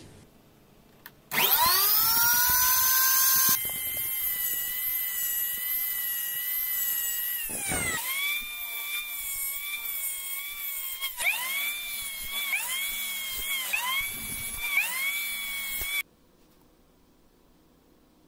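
Electric miter saw starting up with a rising whine and running at full speed, its pitch dipping and recovering several times as the blade cuts through a block of wood. The sound cuts off suddenly near the end.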